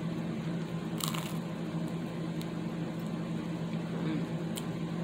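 Chewing and crunching a bite of thin-crust pizza, with a short sharp crunch about a second in and a few light clicks later, over the steady hum of an electric fan.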